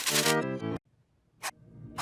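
Electronically warped cartoon audio: a layered, pitch-shifted clip, close to music in sound, that breaks off after under a second. A short click follows about a second and a half in.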